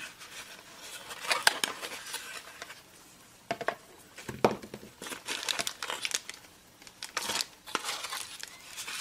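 Cardboard box inserts and plastic-bagged accessories being handled: irregular rustling and crinkling with light knocks and scrapes.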